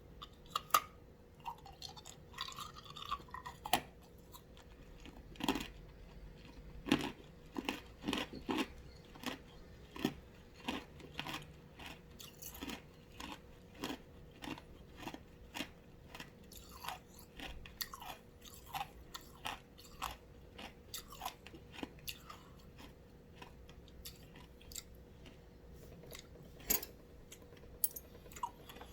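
A person crunching and chewing ice, a steady run of sharp crunches throughout.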